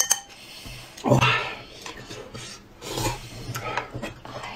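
Eating noises: mouth sounds of slurping and chewing noodles, with a couple of louder noises about a second in and about three seconds in, and chopsticks against bowls.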